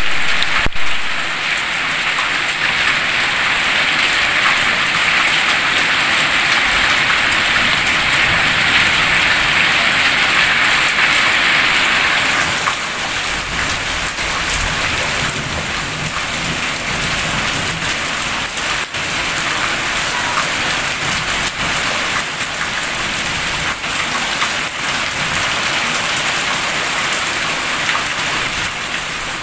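Heavy rain pouring steadily onto clay-tiled roofs, paving and garden plants, a dense, even hiss of falling water. Its tone changes slightly about twelve seconds in.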